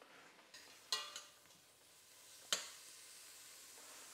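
Prawns frying in butter in a hot pan with a faint, steady sizzle. A cooking utensil clinks against the pan three times: about a second in, just after that, and more sharply at about two and a half seconds.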